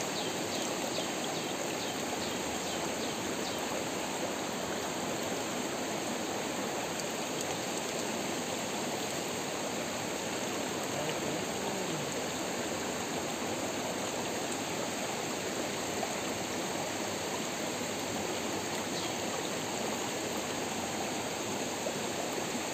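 Steady rushing and trickling of a small, shallow rocky stream, running evenly throughout.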